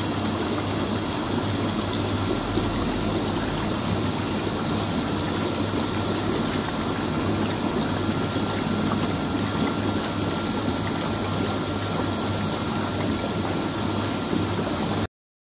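Hydromassage spa tub with ozone therapy running: its pump hums steadily while the jets churn and bubble the water. It stops abruptly near the end.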